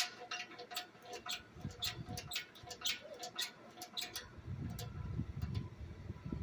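Irregular sharp clicks and ticks of hand tools and metal parts being worked while stripping an air compressor for scrap, then duller knocks and handling noise from about four and a half seconds in.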